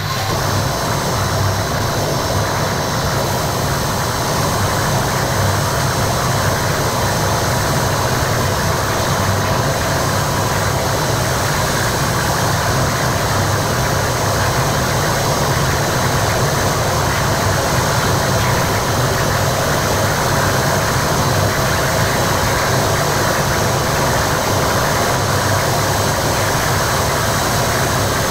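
Harsh noise: a loud, dense, unbroken distorted drone with a heavy low rumble and a few thin steady high tones, from a Korg Kaossilator synth through a Boss MT-2 Metal Zone pedal and a cheap radio through a Boss octave pedal.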